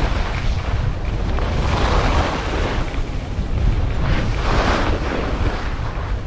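Wind rushing over a body-worn camera's microphone while skiing fast down a steep slope, a steady low buffeting. Louder swishes of skis on the hard snow come about two and four and a half seconds in.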